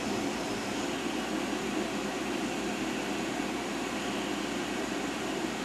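Steady machine-shop background drone: a low, even hum with hiss above it, and no clicks or changes.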